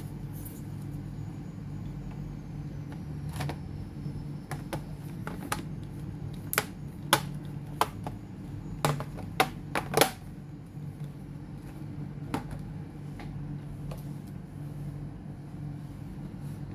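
Sharp clicks and taps of laptop parts being handled, about a dozen in all, most of them close together between about six and ten seconds in, over a steady low hum.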